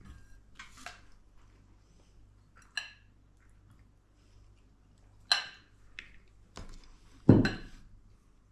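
Metal serving ladle and spoon clinking against ceramic plates and serving bowls while food is dished out: a few separate ringing clinks, then a heavier knock with a dull thud near the end, the loudest of them.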